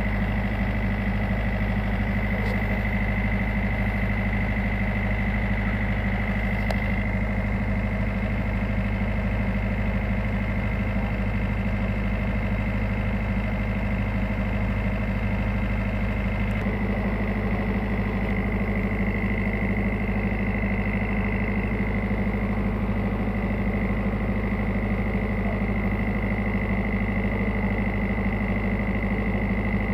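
A tugboat's diesel engine running steadily, a deep even drone with a thin high whine over it; the engine note shifts slightly about halfway through.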